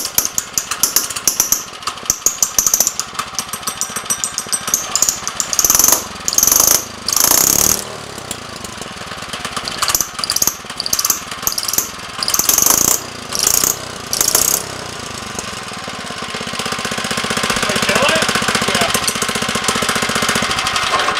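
97cc flathead mini-bike engine running with its cylinder head held down only by a hydraulic press and no head bolts, firing as a fast run of sharp pops with loud spitting bursts from about six to fifteen seconds in. The head is blowing combustion pressure out past the gasket.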